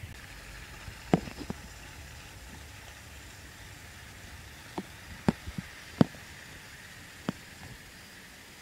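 About nine sharp, irregular clicks and knocks, some in quick pairs, over a faint steady hum; the loudest come about a second in and about six seconds in.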